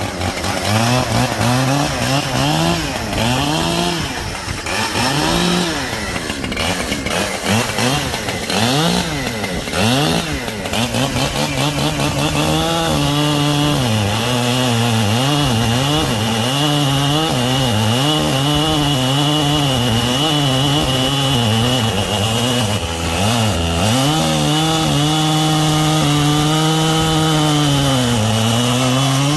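Two-stroke chainsaw cutting through dense, dried elm. In the first half its engine pitch swings up and down repeatedly. It then holds steady at high revs, dipping briefly twice as the chain loads in the cut.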